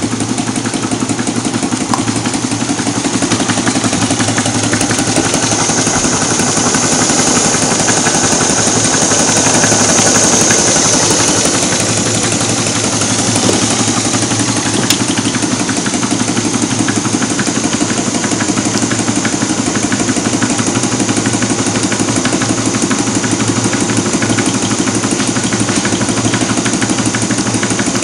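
Homemade two-cylinder Stirling engine running steadily at speed, a fast, even mechanical clatter.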